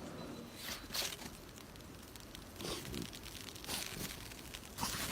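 Faint rustling and scuffing: a few soft, brief noisy strokes over a low hiss, with a louder one right at the end.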